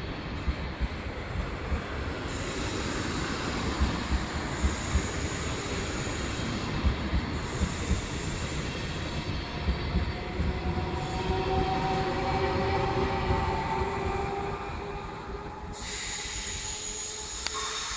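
Double-deck push-pull train with an E464 electric locomotive pushing at the rear, running past and moving away: a steady rolling rumble with wheel clicks over the rail joints and some wavering wheel squeal midway. A steady high hiss comes in suddenly near the end.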